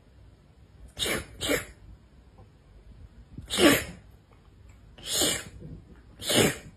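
A cat sneezing five times in short sharp bursts, a quick pair about a second in and then three more spaced about a second and a half apart.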